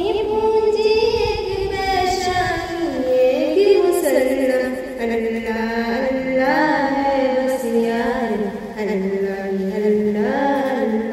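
A young female voice singing an Islamic devotional hymn (hamd o naat) without instruments. The melody is slow and drawn out, with long held notes that slide up and down.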